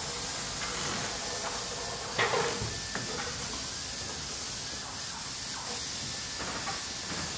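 Steady background hiss, with one sharp knock a little over two seconds in.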